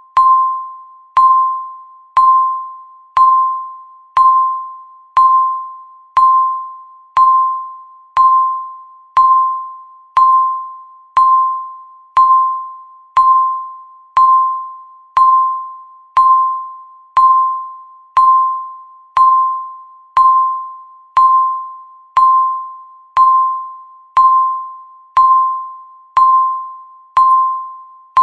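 Countdown timer ticking steadily, once a second. Each tick is a sharp click with a short ringing ping that dies away before the next.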